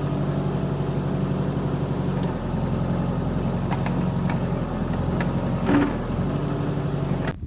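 Compact tractor backhoe's diesel engine running steadily while digging, with a few sharp metallic knocks a little past halfway and a louder one about six seconds in. The sound cuts off suddenly near the end.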